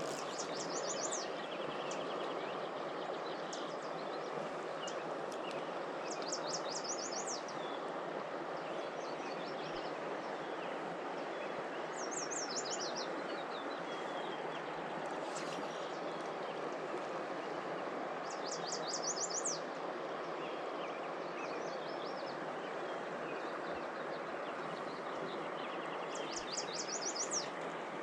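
Mountain river water rushing steadily. A songbird sings a short phrase of rapid high notes over it five times, about every six seconds.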